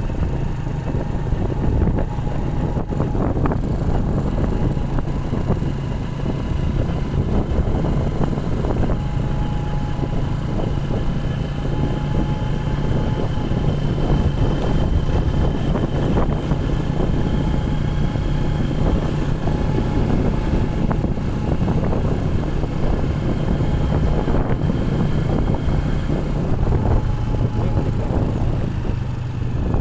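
A motor vehicle driving steadily along a road: its engine runs at an even hum, with wind buffeting the microphone.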